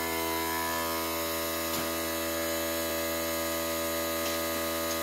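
A steady, even-pitched electrical or motor hum, with a faint tap about two seconds in.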